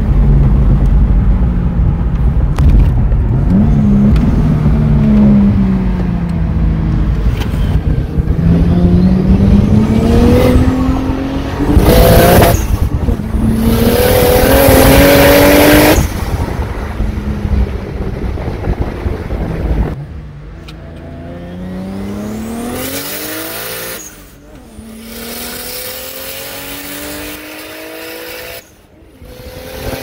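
Turbocharged 2JZ 3.0-litre inline-six of a manual Lexus IS300 accelerating hard through the gears, heard from inside the cabin: the engine note climbs, drops at each gear change and climbs again. A loud rushing noise joins in during the hardest pull, about twelve to sixteen seconds in. After about twenty seconds the sound is much quieter, with the engine note rising again.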